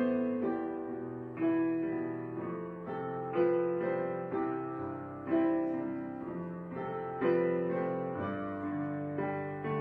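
Slow, gentle background piano music, with a new chord struck about every two seconds and left to ring out.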